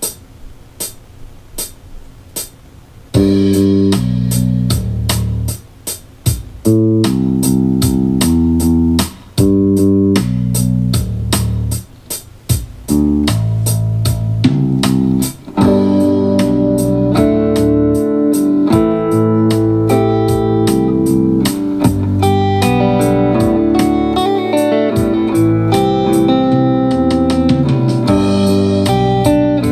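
A few seconds of evenly spaced clicks, then the Spark 40 practice amp's Smart Jam backing track of drums and bass starts, about three seconds in, with electric guitar playing along over a simple chord progression.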